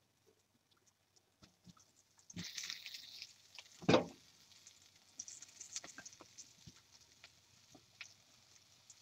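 Floured beef stew chunks being shaken in a mesh strainer over a bowl to knock off excess flour: scattered light patter and rustling starting about two seconds in, with one louder knock about four seconds in.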